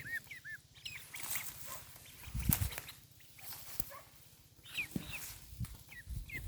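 Short, high-pitched squeaky calls from a small animal, coming in little clusters of two or three, with a few soft clicks and knocks between them.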